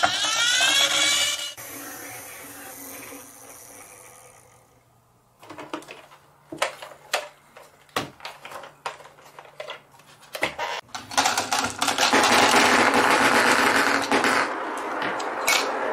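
Toys being handled: a whirring that rises in pitch at the start and then fades over a few seconds, scattered clicks and knocks of plastic and wooden toys, and from about eleven seconds in a loud, dense, steady rattling whir.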